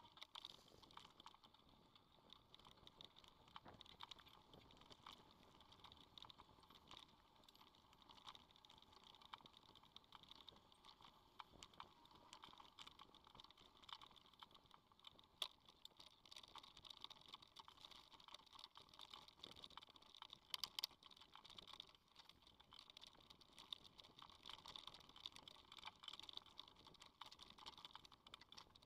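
Faint, irregular clicking and rattling of a mountain bike and its mounted camera jolting over a dirt singletrack, with a few sharper clicks about halfway and about two-thirds of the way through.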